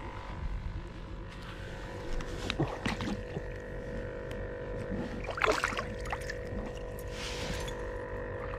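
A steady hum holding several even tones, with a few short splashing and handling noises as a caught trout on a stringer is worked in shallow water; the loudest comes about five and a half seconds in.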